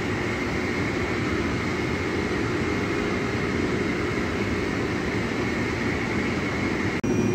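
Steady shipboard machinery and ventilation noise: an even rushing hum with a faint high whine held throughout.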